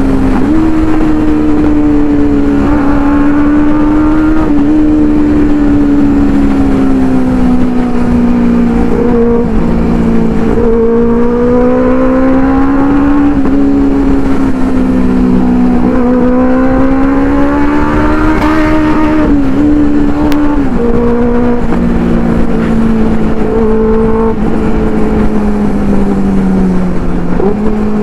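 Inline-four superbike engine running hard while riding. Its note holds high, then dips and climbs again several times as it shifts gear.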